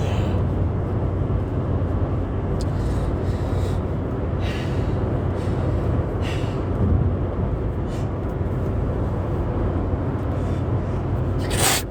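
Steady low road and engine drone inside a moving car, with a few short breathy sounds and a sharp sneeze near the end, from a driver whose allergy-driven sneezing won't stop.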